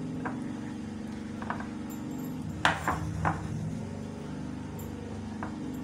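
Wire hand whisk clinking against a glass mixing bowl as thick chocolate cake batter is folded: a few scattered clicks, the loudest three together about halfway through, over a steady low hum.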